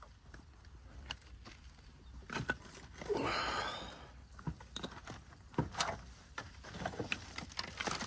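Kittens eating: scattered small clicks and crunches, with a louder rasping sound about three seconds in that lasts about a second.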